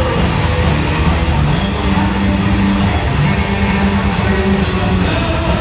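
Heavy metal power trio playing live: distorted electric guitar, bass guitar and drum kit, with cymbals struck in a steady run through the middle and no vocals.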